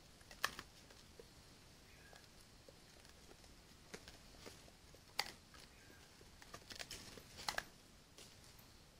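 Faint steady hiss with scattered sharp clicks and crackles, the loudest about half a second in, at about five seconds and in a cluster around seven and a half seconds: an animal foraging in dry leaf litter right beside the trail camera.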